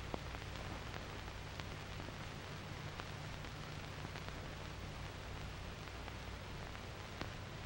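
Old film soundtrack noise: a steady hiss over a low hum, with a few scattered clicks.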